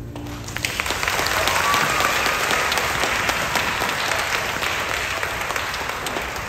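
A held trumpet note cuts off just as it starts, then an audience of schoolchildren and adults breaks into applause. The clapping swells within the first second and slowly tapers off.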